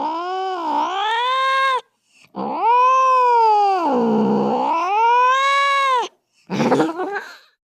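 Angry cat yowling (caterwauling). A long drawn-out howl breaks off about two seconds in. A second long howl dips low in pitch and rises again. Then comes a short, harsh, ragged cry near the end.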